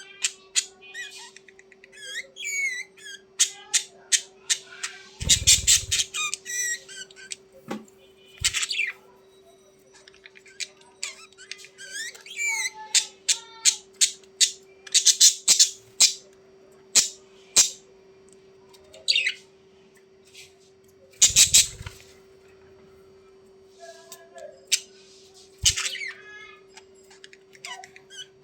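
Budgerigars chattering and warbling: rapid chirps, squawks and quick whistled glides in irregular bursts, over a steady hum. Two short dull thumps come about five seconds in and again near twenty-one seconds.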